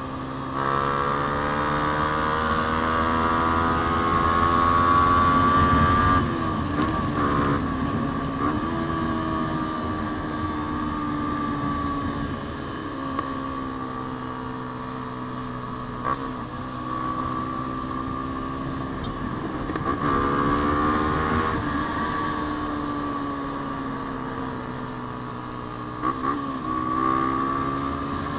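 Yamaha Sniper 150's single-cylinder four-stroke engine, breathing through an aftermarket JVT exhaust pipe, running under way. Its pitch climbs steadily as it accelerates and drops sharply several times as the throttle is closed or a gear is changed.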